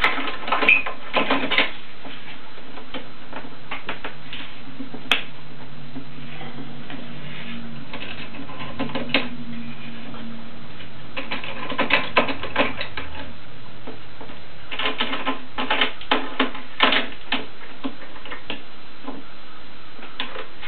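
Metal bar clamps on a glued window frame being adjusted and tightened by hand, giving clusters of rapid rattling clicks that come and go, with a faint steady hum underneath for the first half.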